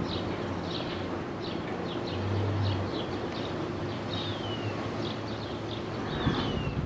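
Small birds chirping repeatedly, about every half second, with two descending whistled calls, one in the middle and one near the end, over a steady low hum and wind noise.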